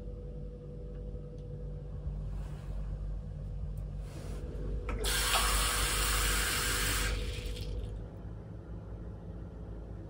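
Water running from a gooseneck bathroom tap into a ceramic cup for about two seconds, after two brief faint hisses, then shut off, over a low steady hum.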